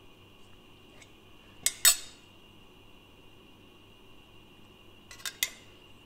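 Sharp metal clicks and clinks from a thin tin gift box being handled and opened: two short clusters, the first about two seconds in and the second about three and a half seconds later.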